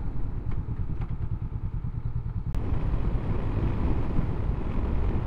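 Honda CB500X parallel-twin motorcycle riding along, a steady low engine and wind rumble. The sound changes about two and a half seconds in, with a brief click.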